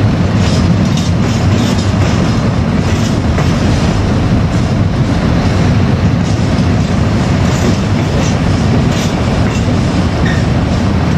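Freight train of empty container flat wagons rolling past at steady speed: a continuous low rumble of wheels on rail, with scattered clicks from the wheels over the track.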